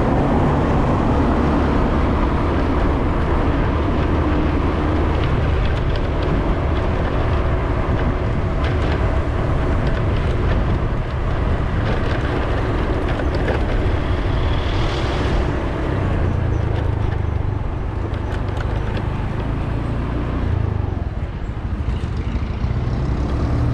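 A vehicle driving along a road: steady engine rumble and tyre noise, with a brief hiss about fifteen seconds in.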